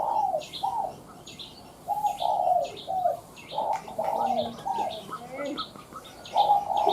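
Spotted dove cooing in repeated short phrases of falling coo notes, a lure bird with a high, narrow-toned call. Small birds chirp steadily throughout.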